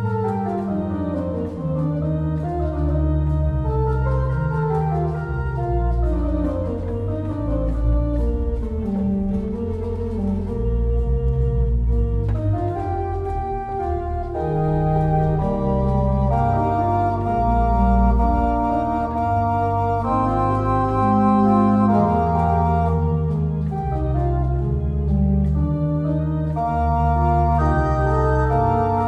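J.W. Walker & Sons pipe organ playing a Baroque piece, with a deep pedal bass line moving beneath several parts played on the manuals.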